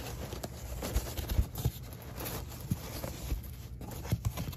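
Crumpled paper towels rustling as a hand digs through them in a foam-lined cardboard box, with scattered thumps and knocks from the box being handled.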